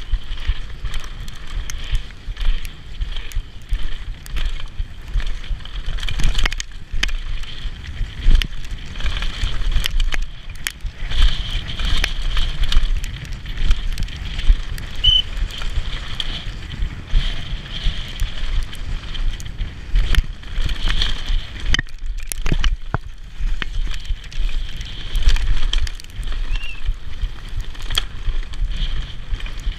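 Specialized Demo downhill mountain bike descending a rough dirt trail at speed: tyres rolling over dirt and rocks with constant rattling and sharp clatters from the chain and bike over bumps, under a heavy rumble of wind on the microphone. It goes briefly quieter about 22 seconds in.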